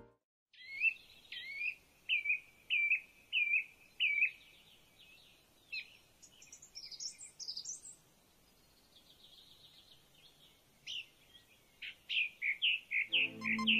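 Birds chirping: a run of short repeated chirps about twice a second, then higher warbling calls, then a quicker burst of chirps near the end.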